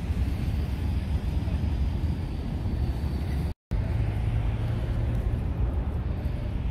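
City street ambience: a steady low rumble of outdoor noise that drops out for a split second a little past halfway, then carries on.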